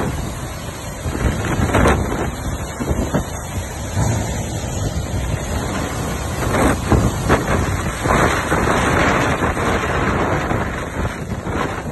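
Strong storm wind and heavy wind-driven rain, the gusts buffeting the microphone. The noise surges several times and is strongest about eight seconds in.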